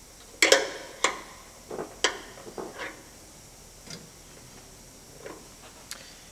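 Sharp metal clicks and taps from a screwdriver working at a bonnet gas strut's end fitting and retaining clip. Three loud clicks come in the first two seconds, followed by a few lighter ticks.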